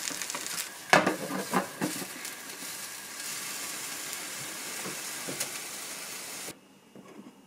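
Food sizzling as it fries in a pan, a steady hiss, with a few sharp knocks about a second in. The sizzling cuts off suddenly near the end.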